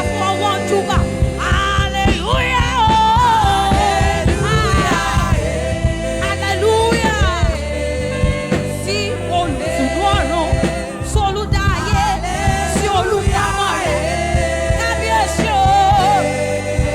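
Gospel praise music: singing with gliding melodic runs over a steady instrumental accompaniment.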